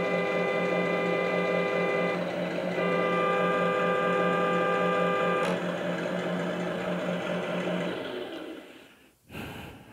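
ESS-One sound module on an RC truck playing a simulated truck horn through its speaker over a steady simulated engine idle: one horn blast stops about two seconds in, and a second one sounds from about three to five and a half seconds. Near the end the engine sound dies away.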